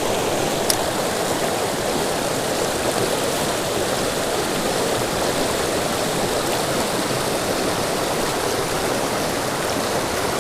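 Small creek's water running over rocks, a steady rushing that doesn't change. A single sharp click sounds just under a second in.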